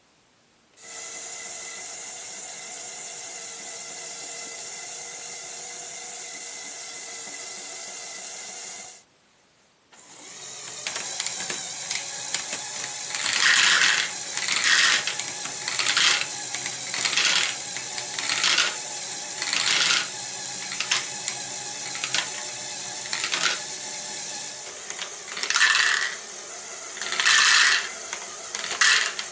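Small electric motor of a LEGO Great Ball Contraption drum module whining steadily for about eight seconds, then stopping. After a short gap it runs again with balls loaded: the rotating drum tumbles and drops plastic LEGO balls, a rattling clatter that swells about every second and a half over the motor's hum.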